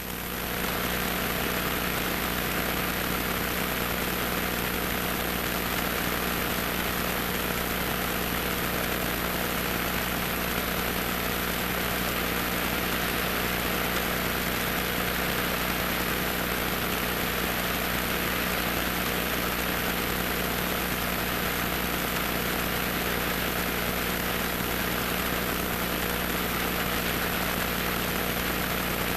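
Cessna 150's four-cylinder piston engine and propeller running steadily at a constant, unchanging power.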